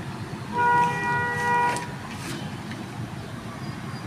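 A single held horn blast, one steady pitch lasting just over a second, over a constant low background hum.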